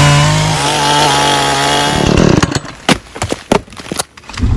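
Husqvarna 445 two-stroke chainsaw running at high revs, cutting through a birch log, its pitch falling as it winds down about two seconds in. Then several sharp scrapes and clicks as a match is struck against the side of a matchbox and catches.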